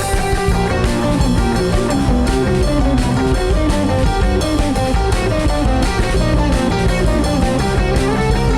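Music led by guitar, with a full band sound at a steady level.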